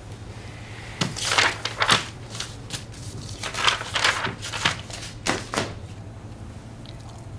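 Crinkling and rustling in a run of short bursts, as of something being handled, starting about a second in and dying away near the end, over a low steady hum.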